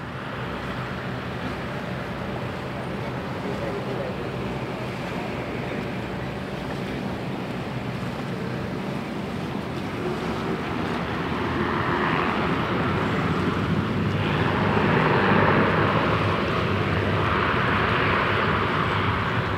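Turboprop engines of a Dash 8-400 running on the runway ahead of departure, a steady hum growing louder from about ten seconds in, mixed with a rush of wind and water.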